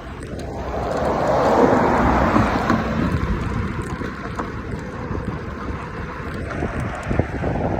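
Wind buffeting the microphone over the rushing of ocean surf, swelling over the first two seconds and then holding steady.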